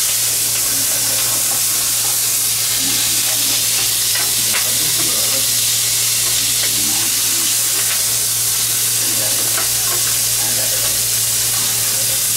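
Hot oil sizzling in a frying pan on a gas burner: a steady, loud sizzle with scattered small crackles.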